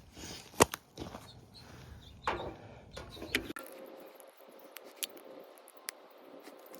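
A few scattered sharp clicks and knocks, with a brief scraping sound a little over two seconds in, over faint background; the low rumble in the background cuts off abruptly about three and a half seconds in.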